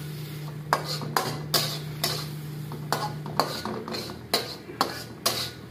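Metal slotted spatula scraping and knocking against a steel wok while stir-frying chopped vegetables and egg, in repeated strokes a few times a second.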